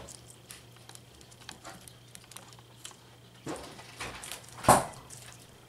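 Guinea pigs chewing raw vegetable pieces, a patter of small crunchy clicks. One sharp, much louder thump comes about three-quarters of the way in.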